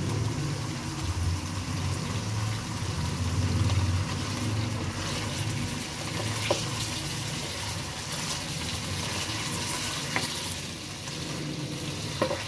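Boneless chicken pieces sizzling as they fry in hot oil in a non-stick karahi, stirred with a plastic spatula. A steady hiss runs throughout, with three brief clicks in the second half.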